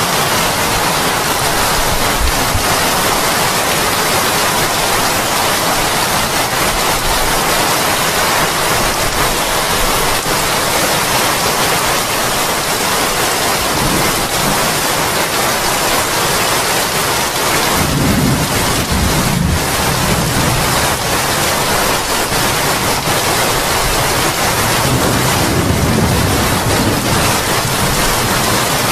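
Heavy tropical rain pouring steadily onto a wooden deck and thatched roof. Deep low rumbles swell up about halfway through and again near the end.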